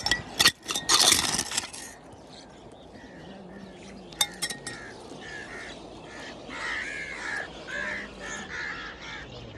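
A metal blade scraping and knocking against gravel and pebbles for the first two seconds, with a couple of sharp clicks about four seconds in. From about halfway on, birds call over and over in short repeated notes.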